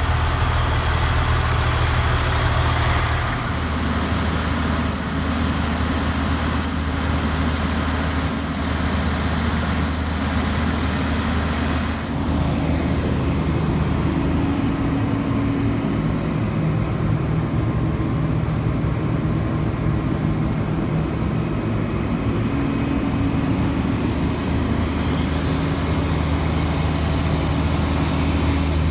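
Diesel engine of an International 2574 sewer vacuum truck idling steadily, a continuous low hum whose pitch shifts slightly a few seconds in and again near the middle.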